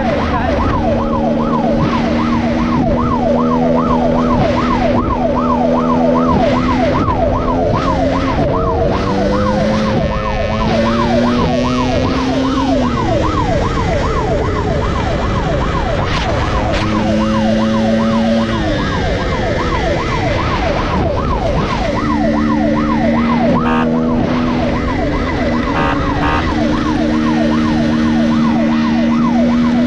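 Police siren yelping in rapid up-and-down sweeps, behind a dirt bike's engine running at speed; the engine's pitch rises and falls a couple of times with throttle and gear changes, and the siren drops out briefly in the middle.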